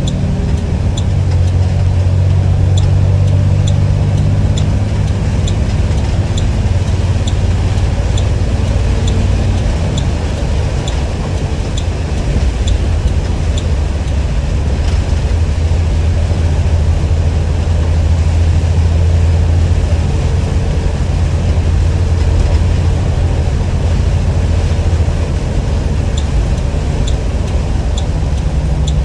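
2021 Blue Bird All American school bus engine running with a steady low drone. A regular light ticking, a bit more than once a second, runs through the first half and comes back near the end.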